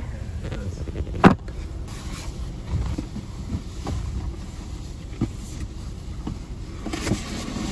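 Knocks and rustling inside a car cabin as someone twists round to reach into the back seat, over a steady low rumble. The loudest is a sharp knock about a second in, followed by several lighter knocks.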